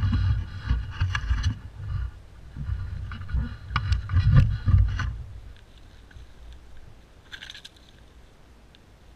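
Handling noise from an action camera mounted on a bow as the bow is carried while walking: low uneven bumping and scraping with a few sharp clicks for about five seconds, then much quieter, with one short scrape about seven seconds in.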